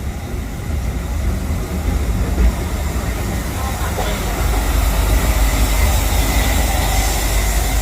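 Narrow-gauge steam train of the Walt Disney World Railroad in motion, heard from aboard: a steady low rumble of the cars rolling on the track, growing louder about halfway through.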